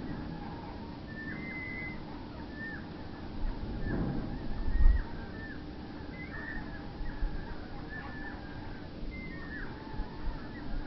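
Common blackbird nestlings giving short, high begging calls over and over. A brief low rumble comes about four to five seconds in.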